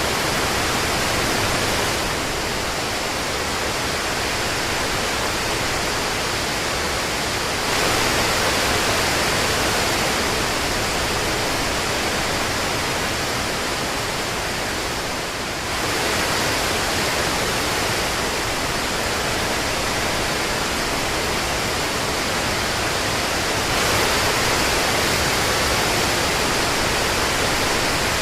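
Steady heavy rain: a dense, even hiss of countless falling drops. Its level and tone jump abruptly a few times, every eight seconds or so.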